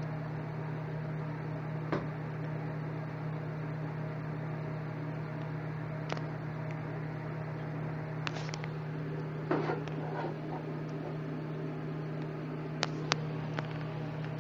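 Steady low hum, like a household appliance or fan running, with a few faint clicks and a brief rustle about nine and a half seconds in.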